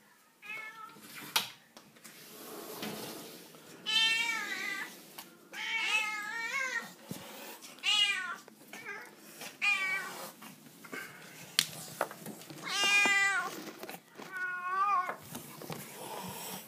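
Feral cats meowing over and over, about seven drawn-out meows spaced a second or two apart, as they beg for their morning feed. A couple of sharp clicks fall between the calls.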